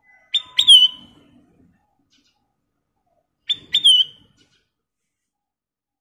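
Ruby-throated bulbul (kutilang emas) calling: two short, loud phrases about three seconds apart, each a quick pair of sharp whistled notes ending in a downward-curling whistle.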